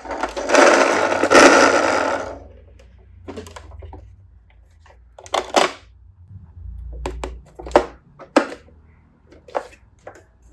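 Plastic toy ambulance being handled: a whirring rattle for about two seconds, then scattered sharp plastic clicks and taps.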